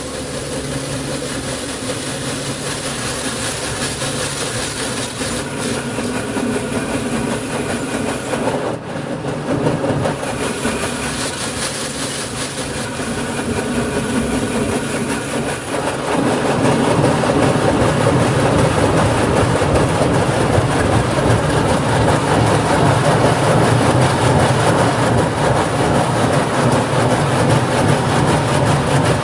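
Tunnel car wash running: water spray and wash machinery making a continuous rushing, rumbling noise with a low hum, growing louder about sixteen seconds in.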